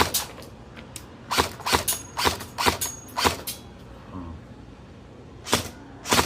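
Airsoft gun shots: a string of short, sharp cracks, about six in the first three and a half seconds, then a gap of about two seconds and another crack near the end.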